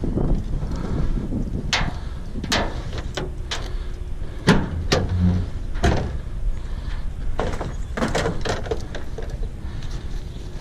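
A run of clunks and knocks as fishing rods and a tackle bag are handled against a pickup truck's ribbed plastic bed liner and the tailgate is let down, with one heavier thud about halfway through. Wind rumbles on the microphone underneath.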